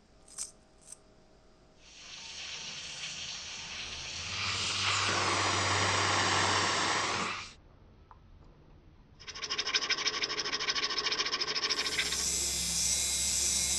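Two short clicks, then a strong hiss that swells with a low rumble and cuts off suddenly. After a short pause, a fast-pulsing hiss starts and grows brighter, with a low hum added near the end.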